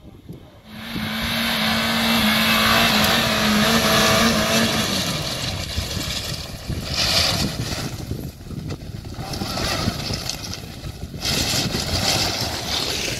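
Suzuki Jimny engine running loudly, coming in suddenly about a second in, with a steady hum through the first few seconds and then uneven noise.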